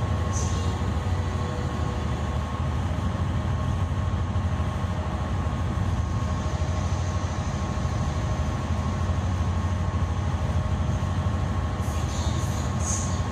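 Car ferry's engines running steadily under way: an even deep drone with a faint steady whine above it, heard from the open car deck.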